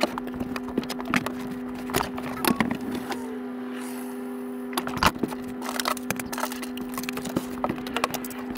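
Rapid knocks, clicks and wood cracking as an RV dinette's wooden seat panels and cushions are pulled apart and handled, over a steady hum.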